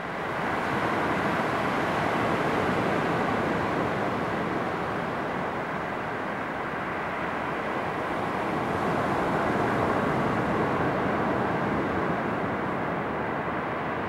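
Ocean surf breaking and washing up a sand beach: a steady rushing that swells about a second in and again about ten seconds in.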